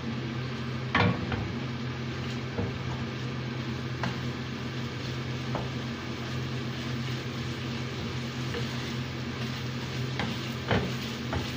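Tuna and egg sizzling in a frying pan while a wooden spatula stirs and scrapes through them, with a few sharp knocks of the spatula against the pan, the loudest about a second in and two more near the end.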